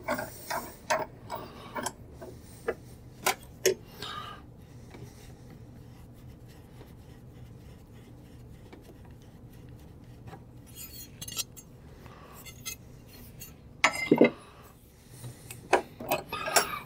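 Metal clinking and scraping as a steel shaft is handled in a bench vise: a quick run of sharp clinks in the first few seconds, quieter handling in the middle, and louder clatter near the end.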